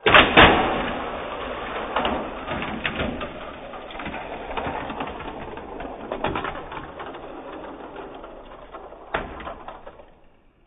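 Slowed-down audio of die-cast Matchbox toy cars clattering along and off a plastic race track. It opens with a loud burst of knocks, then becomes a dense rattling that slowly fades, with one sharp knock about nine seconds in.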